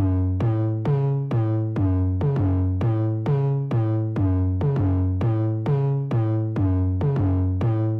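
Electronic instrumental music: a repeating riff of short synth notes, about two to three a second, over a steady bass.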